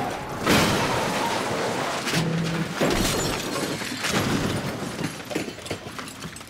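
An ambulance crashing and rolling over onto its side: a loud impact about half a second in, then further crashes and breaking glass that die away toward the end.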